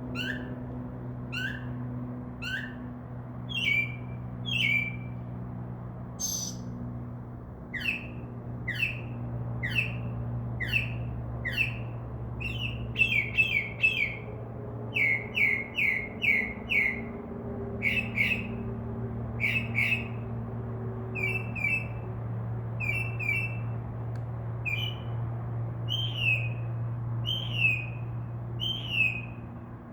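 Northern mockingbird singing at night: short down-slurred whistled notes repeated about once a second, then quick runs of three or four notes, each phrase repeated several times before it switches to the next. A steady low hum runs underneath.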